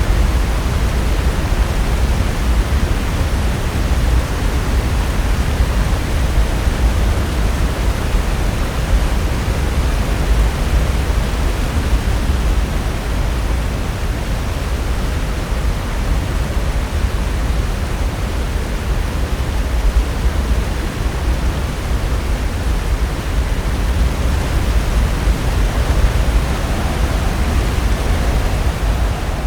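Pacific Ocean surf breaking on the shore: a steady, dense rush of noise with a deep low rumble and no single wave standing out.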